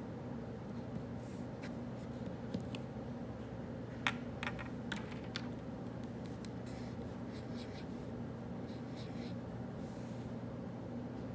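Pen writing on paper in short strokes, with a few light clicks and taps around the middle, the loudest just after four seconds. Underneath runs a steady low hum of room ventilation.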